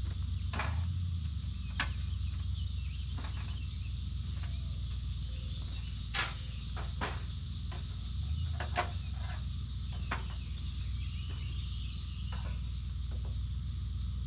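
Campsite ambience: a steady low drone under a steady high insect drone, with scattered sharp clicks and knocks, about a dozen, from things being handled.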